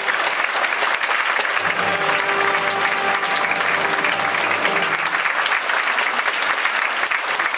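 Large audience applauding steadily, with music playing faintly beneath the clapping until about five seconds in.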